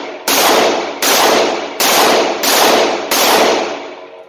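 Five shots from a stainless RIA AL3.1 .357 Magnum snub-nosed revolver, fired double action at a steady pace about three-quarters of a second apart. Each report echoes off the walls of an indoor range.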